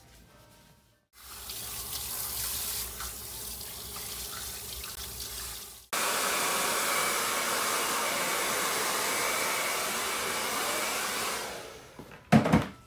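Water running at a salon shampoo bowl during a hair wash, a steady rush with a low hum. It then cuts to a handheld hair dryer blowing steadily and louder, which winds down shortly before a single sharp thump near the end.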